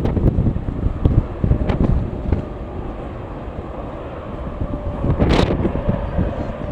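Strong gusty wind buffeting the microphone, over a faint steady whine of a distant jet aircraft's engines. A brief hiss of noise about five seconds in.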